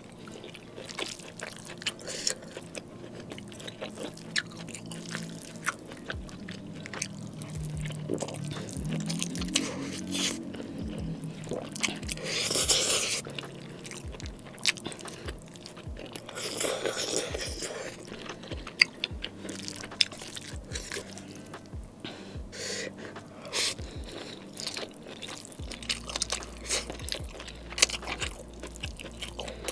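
Close-miked eating: wet chewing and smacking of saucy instant noodles and steak pieces, with many short clicks throughout. There are two louder noodle slurps, about 13 and 17 seconds in.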